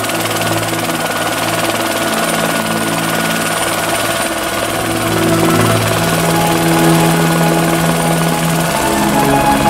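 Single-engine turbine helicopter (AS350 Écureuil type) running on the ground with its rotor turning, a steady turbine whine over the rotor noise, getting a little louder about halfway through.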